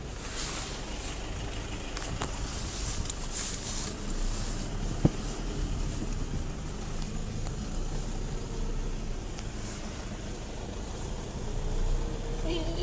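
Toyota Hilux D-4D turbodiesel engine running at low revs, heard from inside the cab, with the truck creeping downhill in first gear on engine braking. A single sharp knock about five seconds in.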